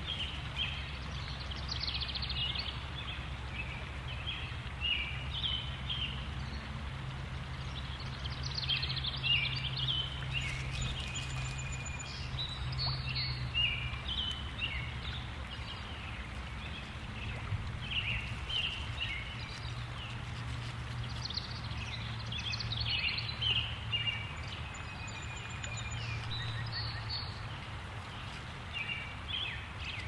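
Wild birds chirping and calling outdoors: many short, high notes from several birds throughout, over a steady low hum and a soft background hiss.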